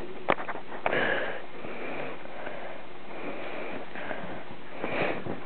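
A dog sniffing close to the microphone: a run of breathy sniffs, with a few sharp clicks near the start.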